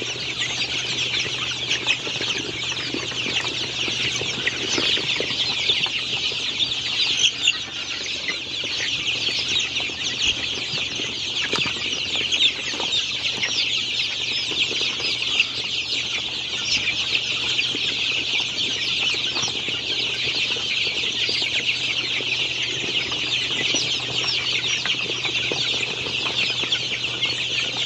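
A large flock of young chickens peeping and cheeping continuously, many overlapping high-pitched calls at once.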